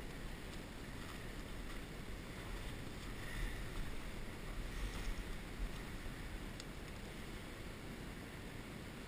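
Steady rush of river water, with wind buffeting the microphone in low rumbles that swell briefly in the middle.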